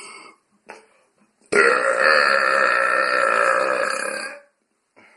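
A man's long, loud deliberate burp with a steady pitch, starting suddenly about a second and a half in and lasting about three seconds.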